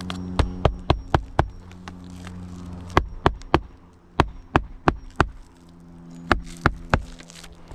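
Hammer driving roofing nails into a shingle: four quick runs of sharp blows, about three a second, fifteen strikes in all.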